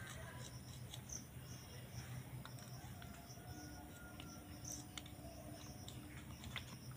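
Faint steady chirping of insects such as crickets, with scattered light clicks of green chillies being sliced on a boti, a curved fixed blade.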